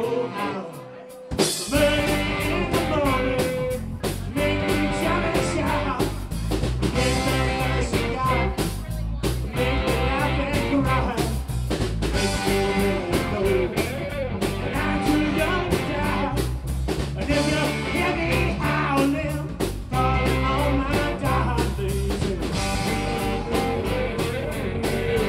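A live blues band playing: a man singing over electric guitars, bass and drums. The full band enters loudly about a second in, after a quieter start.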